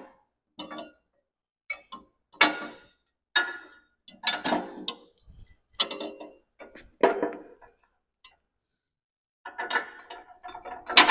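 Steel backhoe top link being slid into its bracket and a long bolt worked through the holes: irregular metal clanks and clinks, each with a short ring, a pause about two-thirds through, then a quick cluster of clanks near the end.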